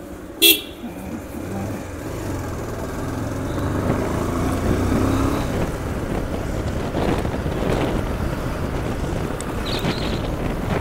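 Bajaj Pulsar 150's single-cylinder engine running as the motorcycle rides along, pulling up to speed over the first few seconds and then holding steady. There is a short sharp sound about half a second in.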